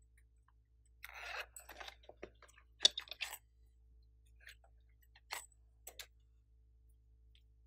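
Hard plastic being handled: rustling and clicking as a plastic case is opened and small plastic bottles are taken out. A burst of clicks and rustles about a second in, the loudest sharp click near three seconds, then a few single lighter clicks.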